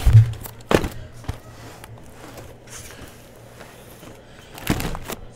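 Cardboard hobby boxes of trading cards being handled and set down: a few sharp knocks and taps, with a cluster of them near the end, over a low steady hum.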